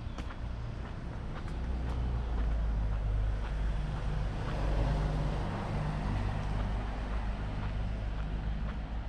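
A car passing on the street, its noise swelling from about two seconds in and fading again after the middle, over a steady low traffic rumble. Faint footsteps on the pavement tick now and then.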